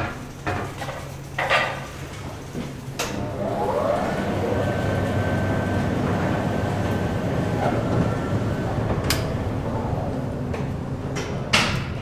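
Old Otis car elevator, built 1911 and modernised in the 1970s: a few metal clanks, then the drive starts with a brief rising whine and the car runs with a steady hum and a faint high whine. Two sharp clanks come near the end.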